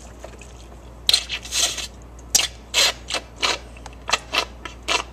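Siphon-bulb hand pump being squeezed over and over to prime it, each squeeze forcing a short hissing spurt of air and water through the tubing, about two a second from about a second in.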